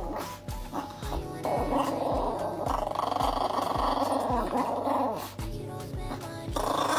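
Two Yorkshire terriers growling at each other in a squabble, over background music with a steady beat of about two thumps a second.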